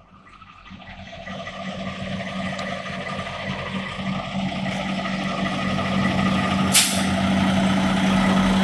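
Semi truck's diesel engine idling with a steady rumble, growing steadily louder as it is approached. A brief sharp hiss comes out about seven seconds in.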